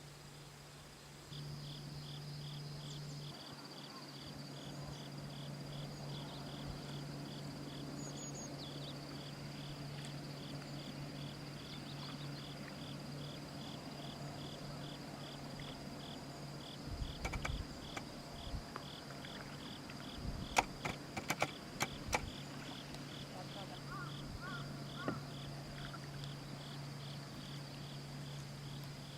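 Cricket chirping in an even, high-pitched pulse, about two to three chirps a second, over a steady low hum. A cluster of sharp clicks comes a little past the middle.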